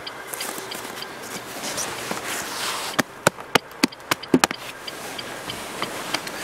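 Footsteps crunching in snow beside the car, followed about three seconds in by a quick run of sharp clicks and knocks. A faint, regular ticking at about three a second goes on underneath.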